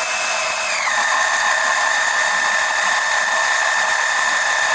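Oil extraction pump running as it pumps old engine oil out into a jug, a steady high whine that drops to a lower pitch about a second in and holds there.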